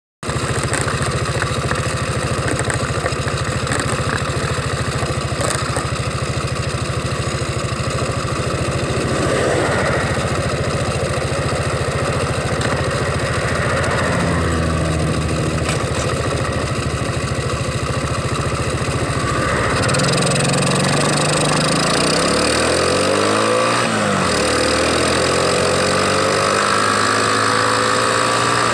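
Car engine heard from inside the cabin, idling steadily, then revving up as the car pulls away about two-thirds of the way in, with a gear change where the rising pitch drops and climbs again.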